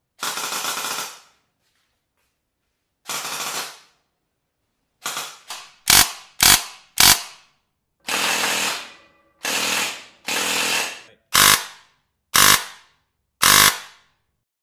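Airsoft electric gearbox cycling: about a second of rapid full-auto fire at a time, several times, mixed with single sharp semi-auto shots, the loudest events, in the second half.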